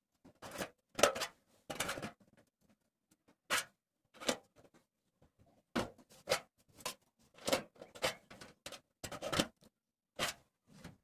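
A rotary potentiometer being worked into a hole in a thin tinplate oil tin by hand: a dozen or so irregular short clicks, scrapes and light metallic rattles.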